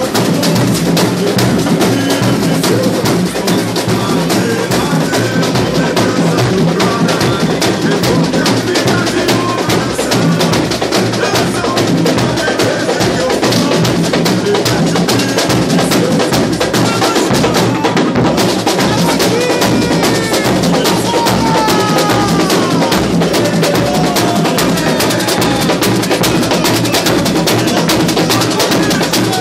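Samba school bateria playing loud, driving batucada, with surdo bass drums and repinique drums pounding out a dense, steady samba rhythm.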